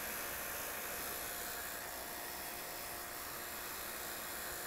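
Refrigeration vacuum pump running steadily, an even hiss with a faint steady tone, while it pulls a mini-split system down to a deep vacuum of about 150 microns.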